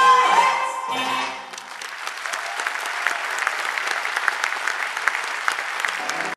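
The song's final held note and the music end in the first second and a half, then a theatre audience applauds, a dense steady clapping.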